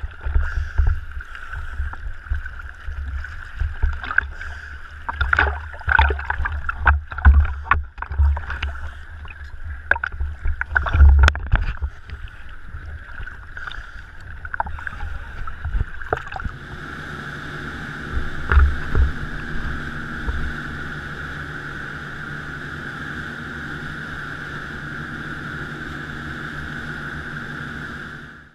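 Choppy sea water slapping and splashing irregularly against a camera held at the surface. About two-thirds of the way through this gives way to a dive boat under way: a steady engine hum with rushing water and a couple of thumps of the hull on the waves.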